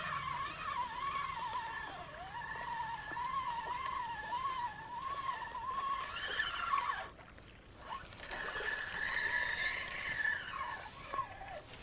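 A motor drones with a wavering pitch. It fades out for about a second some seven seconds in, then returns and falls in pitch near the end.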